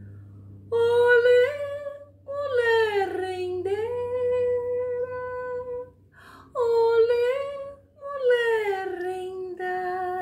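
A woman's voice singing a wordless melody in four phrases, most sliding down into a long held note.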